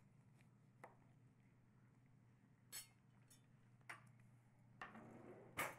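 Faint kitchen sounds of a knife cutting limes on a plastic cutting mat: a few light knocks and clinks, the sharpest just before the end, over a low steady hum.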